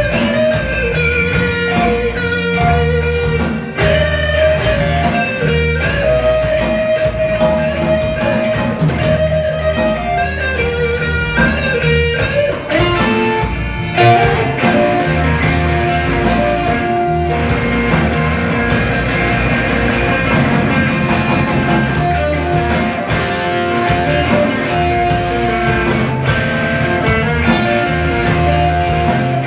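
Live band playing a slow blues instrumental passage: an electric guitar lead with long held and bending notes over bass and a steady drum beat.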